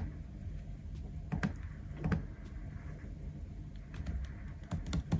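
Sparse, irregular small clicks and taps from desk work with a pen, papers and a laptop, over a low steady room hum.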